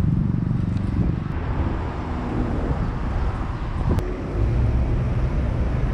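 City street traffic: car engines running and passing with a steady low rumble, a pitched engine hum in the first couple of seconds, and wind buffeting the microphone.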